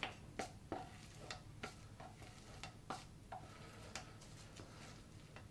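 A spoon tapping and scraping against a non-stick frying pan while scooping mashed potato: faint, irregular clicks, about two a second, thinning out near the end.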